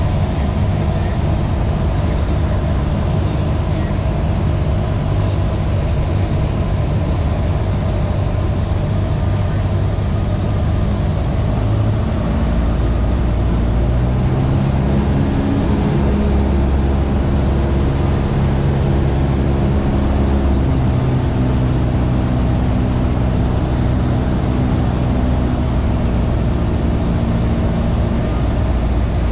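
Light single-engine airplane's piston engine and propeller droning steadily inside the cabin on final approach to landing. The engine note changes about twelve seconds in.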